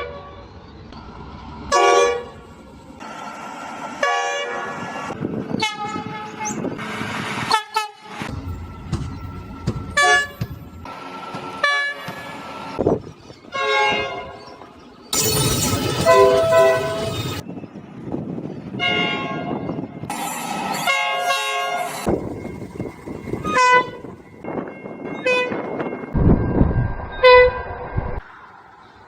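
Train horns sounding one blast after another, some short and some longer, at differing pitches.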